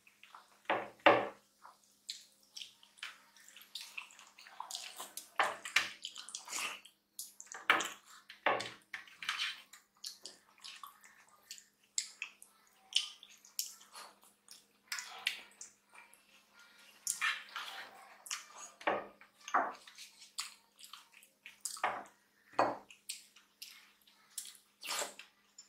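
Close-miked wet eating sounds of two people eating rice and dal with their hands: irregular smacks and clicks of chewing and lips, with squishing of fingers mixing the food.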